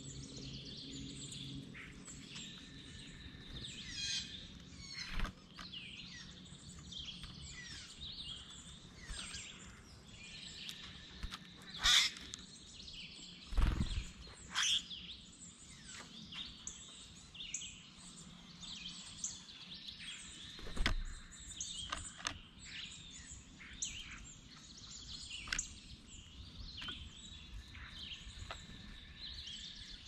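Wild songbirds chirping and calling, many short scattered calls overlapping, with a few thumps.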